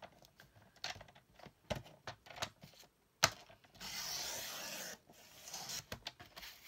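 Sliding rail paper trimmer cutting a map page. There are light clicks and taps, then a sharp click about three seconds in, then about a second of steady scraping as the blade runs along the rail through the paper.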